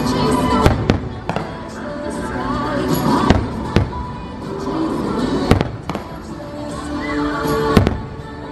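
Aerial fireworks shells bursting overhead, several sharp bangs a second or two apart, over the show's music playing through the park loudspeakers.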